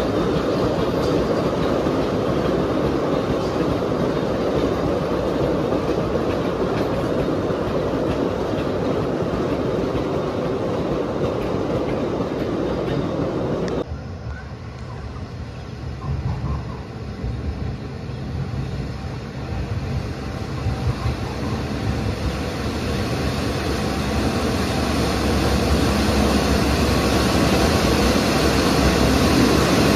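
Sugarcane train of loaded cane bins rolling past on a narrow-gauge cane tramway: a steady rumble and clatter of wagon wheels on rail. About halfway through it cuts to the low running of a diesel cane locomotive hauling empty bins toward the listener, growing louder toward the end.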